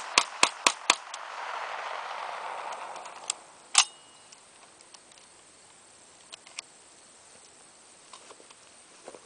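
A semi-automatic Vector Arms Uzi 9mm carbine fires four quick shots, about four a second, with a wash of sound after them that fades over the next two seconds. About four seconds in comes one sharp metallic clack with a brief ring, then a few faint clicks as the gun is handled.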